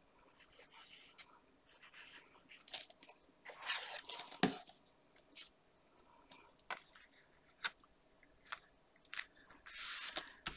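Card and paper being handled: scattered light taps and rustles as the card panels are lifted, moved and laid down, with a longer rustle near the end as hands smooth a paper panel flat.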